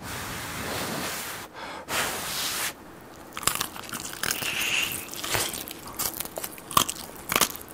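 Blowing hard twice on a piping-hot fried chicken leg to cool it, then biting into its crispy batter coating about three and a half seconds in and crunching and chewing, close-miked.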